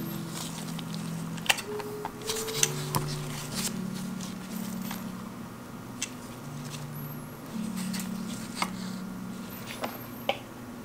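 Soft background music of slow held notes, with sharp clicks, squeaks and rustling as gloved hands handle and adjust a film SLR camera on a clamp-arm mount.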